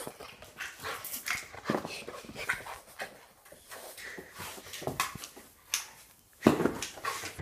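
Rhodesian ridgeback, husky, dingo and pitbull cross dog at play, making a string of short, irregular sounds, with a louder one about six and a half seconds in.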